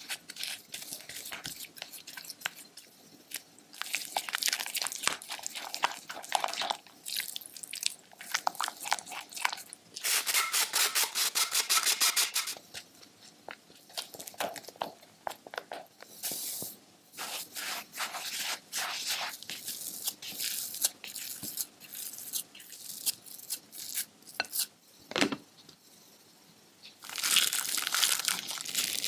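A silicone spatula stirring and scraping butter, powdered sugar and flour in a glass bowl, with irregular scrapes and taps and a stretch of quick, even strokes about ten seconds in. Near the end, hands in plastic gloves knead crumbly dough with a dense rustling.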